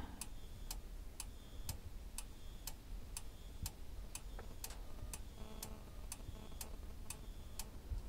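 Steady, sharp ticking, about two ticks a second, with faint short tones appearing in the second half.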